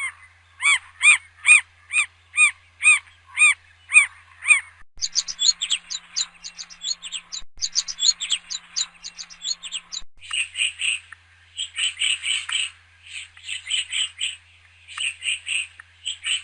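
Bird calls from several recordings spliced one after another. First comes a steady run of repeated arching whistled notes, about two a second. About five seconds in, it switches abruptly to a rapid stream of quick downward-sweeping chirps. About ten seconds in, it changes again to bursts of fast chirping, each about a second long, with short gaps between.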